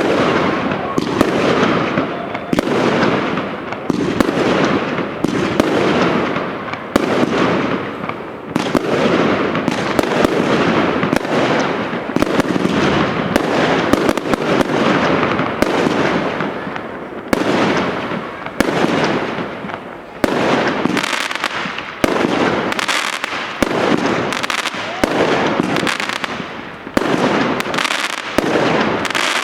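Consumer firework batteries firing in a dense, continuous barrage: rapid shots and bursting cracks, several a second, with only brief lulls.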